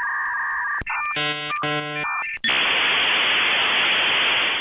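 Dial-up modem connection sound. A steady high tone breaks off about a second in, two short blocks of stacked beeping tones follow, and then a loud hiss of static cuts off suddenly at the end. It signals a slow, failing internet connection.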